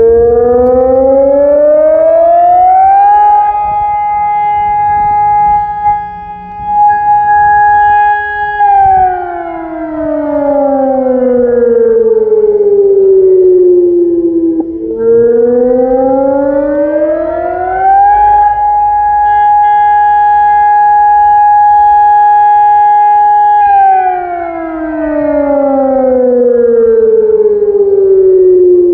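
MARS-ARSENAL AS-600 electronic civil-defence siren with a BAO-600 acoustic warning unit, sounding through its horns in a scheduled test of the city warning system. It plays a two-note wail that rises for about three seconds, holds steady for about five, then falls for about six. The cycle runs twice.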